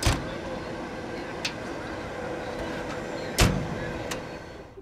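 Steady hum of a standing EP2K electric locomotive with a faint steady tone, broken by two loud sharp metallic clanks about three and a half seconds apart, the second the louder, and a couple of lighter clicks.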